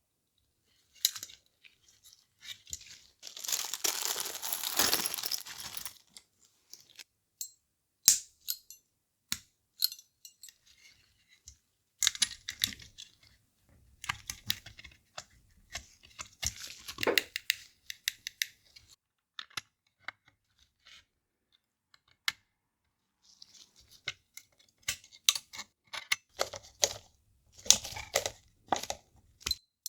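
Hands working small plastic handheld-console parts and tools during reassembly: scattered sharp clicks and taps, with a longer scratchy rustle about three to six seconds in.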